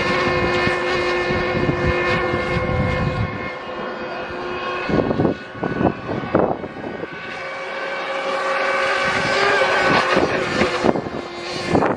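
Internal-combustion model racing boat's engine running flat out, a steady high-pitched buzz as the boat speeds across the water. It drops away about four seconds in, broken by a few short bursts of noise, and comes back louder with its pitch rising a little late on.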